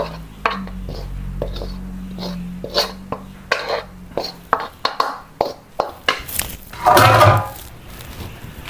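Fried instant noodles being scraped out of a frying pan onto a plate: a run of short metal scrapes and taps, with a louder clatter about seven seconds in.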